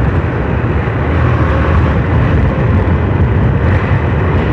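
Motorcycle on the move: a steady, loud low rumble of engine and road noise, with no single distinct knock or event standing out.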